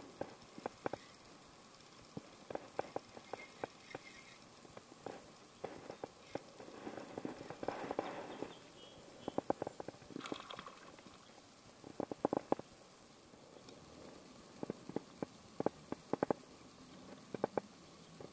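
River water lapping and gurgling right at the microphone, with irregular sharp clicks and taps, some in quick clusters.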